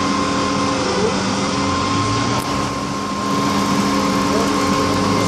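Garbage truck's engine running steadily to drive its hydraulic crane as the crane holds up an underground waste container: a steady mechanical hum with a thin, high, constant tone over it.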